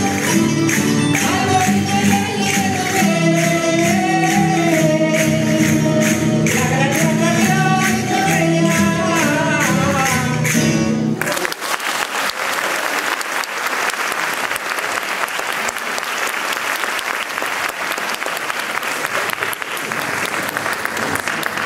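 Valencian folk dance music from a live band of guitars and lutes, with a sung melody over a steady percussion beat, stops abruptly about eleven seconds in. Audience applause follows for the rest.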